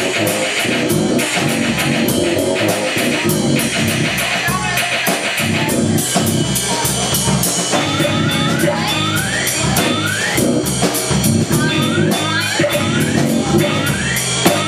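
Live improvised keyboard and drum kit music, the cymbals keeping a steady pulse. From about eight seconds in, short rising slides repeat in the music.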